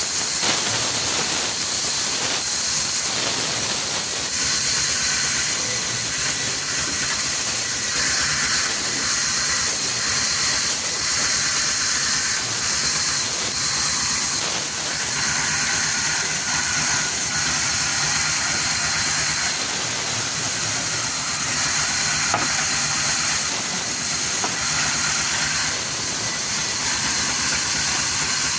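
A machine running steadily: a loud, even hiss over a fast, regular rattle, unchanging in level.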